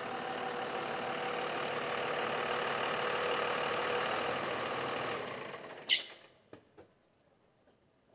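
Dodge Ram pickup truck's engine running as it pulls in and stops, the sound dying away about five seconds in. A short high squeal follows, then a couple of faint clicks.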